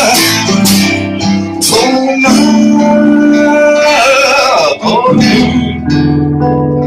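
Music: a voice singing over acoustic guitar.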